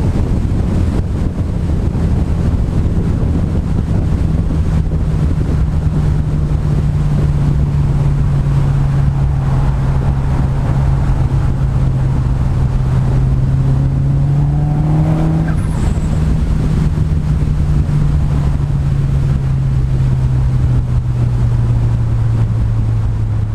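Nissan 200SX S14's SR20DET turbocharged 2.0-litre four-cylinder engine running at fairly steady revs under way, over heavy wind and road rumble on the camera microphone. The engine note rises a little about midway, then slowly drops lower toward the end as the revs ease off.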